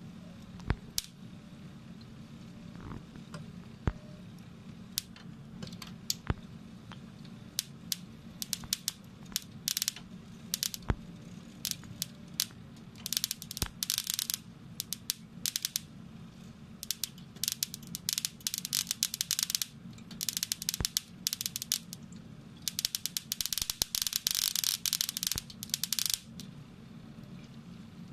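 Molten metal spattering and crackling as a wire-fed metal 3D printer melts its wire: scattered sharp clicks, then three longer stretches of dense crackle in the second half, over a steady low hum.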